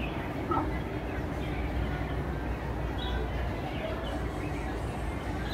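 City park ambience: a steady low rumble and hiss, with a few brief faint bird chirps.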